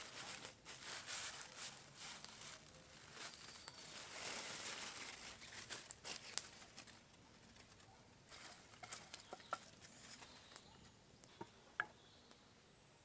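Aluminium foil crinkling and rustling as it is pulled open from around a leaf-wrapped chicken, busiest in the first half. After that only scattered small pops and ticks are left.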